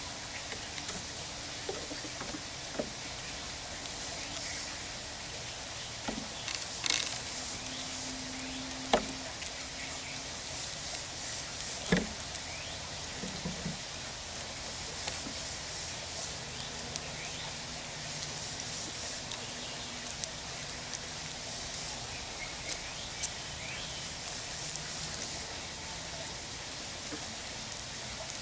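Scattered small clicks and taps of a gray squirrel picking up and cracking sunflower seeds on a table, with a few louder knocks, over a steady outdoor hiss.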